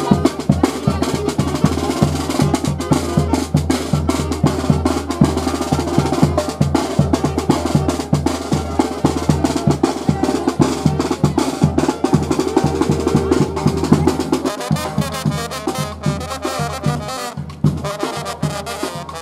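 Mexican banda (brass band) playing, with a bass drum (tambora) and snare drum beating a steady rhythm under the brass. The fuller sound thins out about three-quarters of the way through while the drumming goes on.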